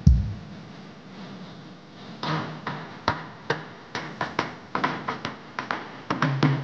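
Live band drums starting up: a loud low thump, then after about two seconds sharp drum strikes, sparse at first and quickening, with a sustained low keyboard note joining near the end.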